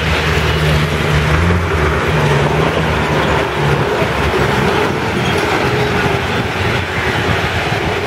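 A large vehicle, apparently a bus, passing close by, its engine humming steadily and fading after about four seconds, over steady street traffic noise.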